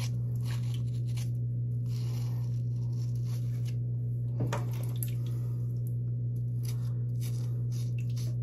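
Cartridge razor scraping through shaving cream and stubble on the chin and neck: an irregular run of short strokes, one a little louder about halfway through, over a steady low hum.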